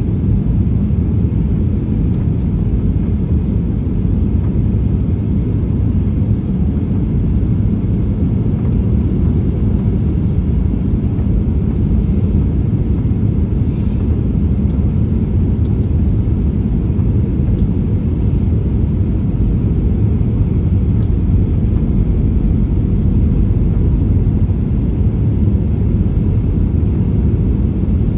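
Steady jet airliner cabin noise heard from a window seat over the wing: an even, low rumble of engines and rushing air during the descent toward landing.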